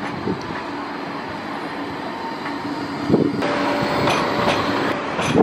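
Bombardier Flexity 2 electric tram passing close by on street track: a steady electric hum over the running noise of wheels on rail. The sound shifts about three and a half seconds in, with more hiss and a new steady tone.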